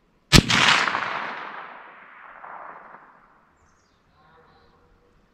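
A single gunshot from a PPS-43C firing 7.62×25mm Tokarev, followed by its echo rolling away over about three seconds.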